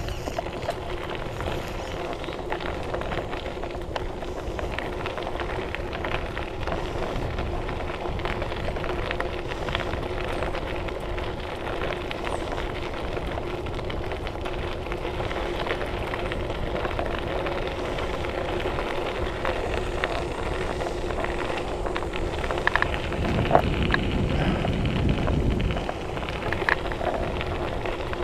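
Mountain bike tyres rolling over a packed-gravel trail: a steady crackle of grit under the tyres with a steady hum and wind on the microphone. Near the end a louder rumble lasts a few seconds, with a couple of sharp knocks.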